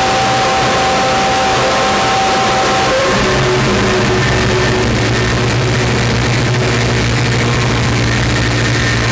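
Homemade noise instrument playing a loud, dense wash of noise with held tones; about three seconds in, a high tone cuts out and a low steady drone takes over.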